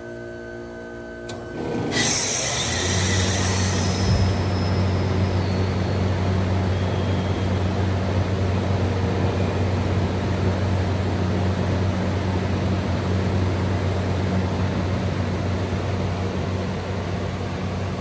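1983 Whirlpool NCHBA 2.5-ton heat pump coming out of defrost. About two seconds in, a sudden loud whoosh of refrigerant hiss is heard as the reversing valve shifts back, fading over a few seconds. Then the outdoor fan starts, and the compressor and fan run on with a steady hum.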